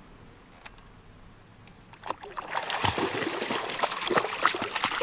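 A dog bounding through shallow lake water, its legs churning up a dense run of splashing that starts about two seconds in.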